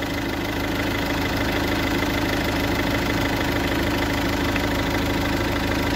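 Volvo V40 1.9 turbodiesel four-cylinder engine idling steadily, heard close up under the open bonnet.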